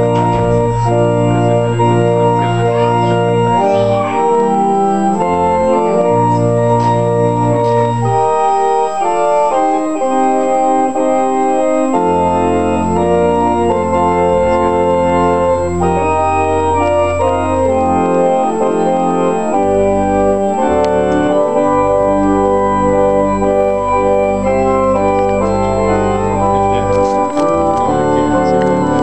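Organ playing a slow wedding processional: sustained chords over held bass notes that change every few seconds.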